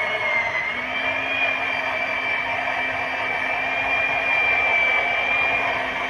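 Electric chainsaw running steadily while cutting through a fallen tree trunk, a high motor whine that dips briefly in pitch under load in the first second, then holds steady.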